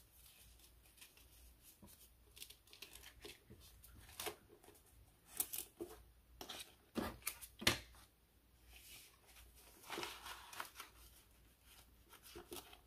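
Paper dollar bills rustling and a clear plastic zipper pouch crinkling as a stack of banknotes is handled and slid into the pouch: quiet rustling broken by a few sharper crinkles and clicks, the loudest in the middle.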